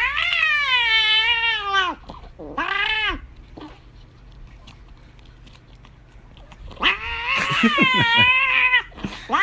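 A cat yowling: a long wavering yowl, then a shorter call. After a few seconds' lull comes another long yowl, and a further call begins at the very end.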